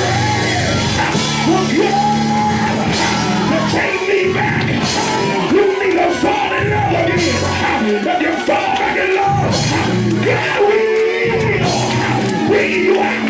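Live church band music with drums and bass, and a raised voice singing and shouting over it.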